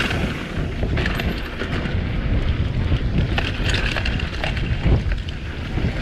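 Mountain bike riding over a dirt trail: wind rumbling on the microphone and tyres rolling, with frequent sharp clicks and rattles from the bike over bumps.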